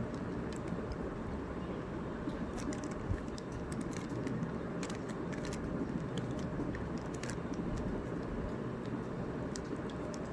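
Rubik's Cube layers being turned by hand, giving scattered light clicks, over a steady low background rumble.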